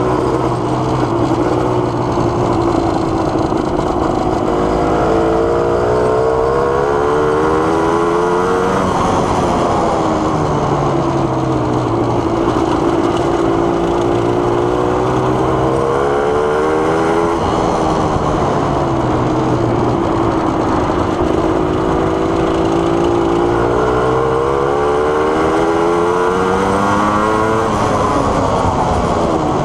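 1987 Suzuki LT250R quad's 250 cc two-stroke single-cylinder engine running under way. The pitch climbs steadily and then drops sharply three times.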